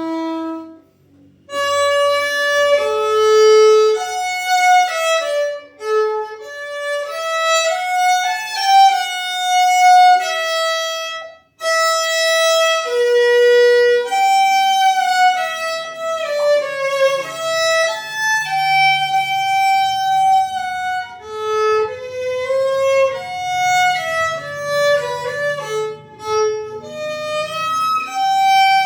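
KM Paganini HL001 violin played with the bow, a melody of held notes and some slides between them. The playing stops briefly about a second in and again near the middle.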